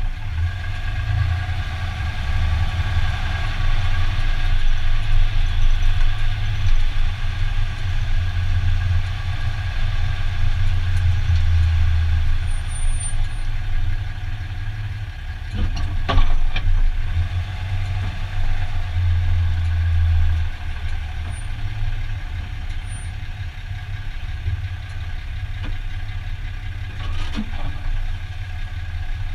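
2015 Dodge Ram 2500 pickup running at parking-lot speed, a steady low engine and drivetrain rumble, with a sharp knock about sixteen seconds in and a fainter one near the end, the kind of drivetrain noise the owner hears when parking.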